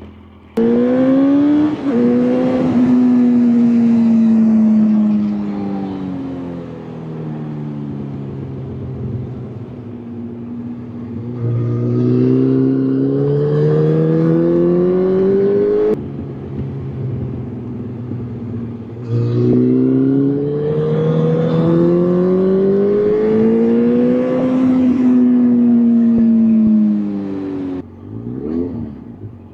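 Vehicle engine under way, its pitch falling as it slows and climbing again as it accelerates, in several stretches joined by abrupt cuts.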